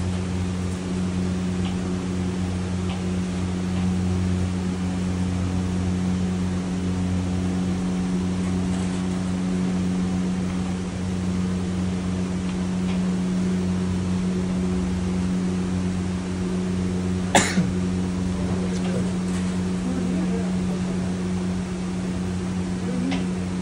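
Steady low mechanical hum of kitchen machinery, with one sharp click about seventeen seconds in.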